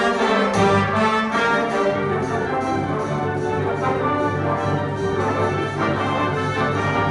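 Concert band playing, with brass to the fore over sustained chords.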